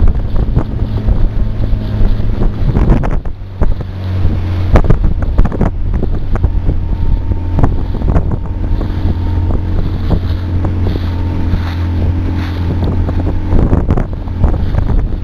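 Johnson 40 outboard motor running steadily under way, with wind buffeting the microphone and water rushing and splashing along the dory's hull. The engine note drops briefly about three seconds in and then picks up again.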